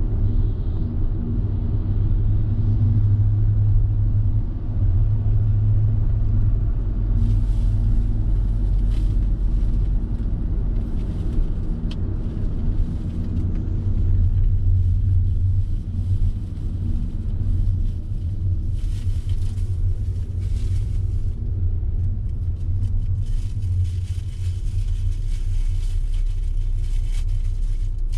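A car being driven: a steady, low rumble of engine and road noise, with a higher hiss that comes and goes, first about seven seconds in and again in the second half.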